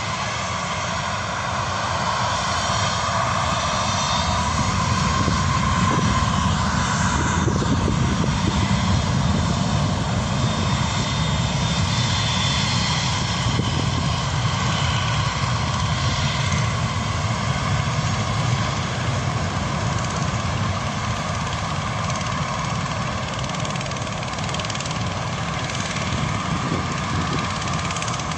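An airliner's engines pass by with a steady whine over a dense rumble. The sound swells to its loudest about six to nine seconds in, then fades slowly.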